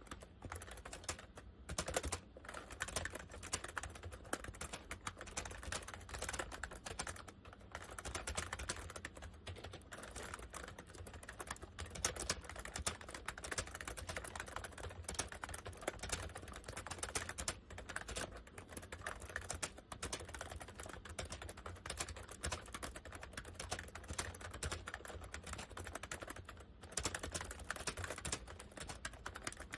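Continuous fast typing on a Honeywell 101WN/WT keyboard fitted with what appear to be dye-sublimation PBT keycaps: a dense stream of key clacks, broken by a few brief pauses.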